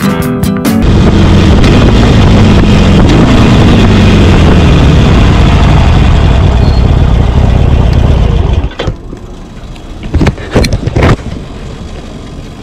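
Guitar music cuts off less than a second in, giving way to a cruiser motorcycle riding at speed: loud, steady engine and wind noise with a slowly falling engine note. About three-quarters of the way through, the sound drops sharply as the bike slows, with a few brief loud gusts or knocks.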